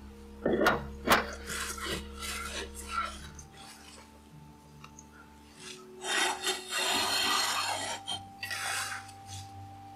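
Handling noise from mounting a wood blank on a wood lathe: sharp knocks about half a second and a second in as the faceplate goes onto the spindle, then scraping and metal rubbing as the lathe's cast tool rest is slid and locked into place, loudest about six to eight seconds in. Faint classical music plays underneath.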